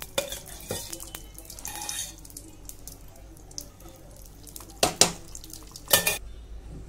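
Metal spoon clinking and knocking against a non-stick kadai as spoonfuls of desi ghee are tipped into it: a few sharp clinks, the two loudest about five and six seconds in.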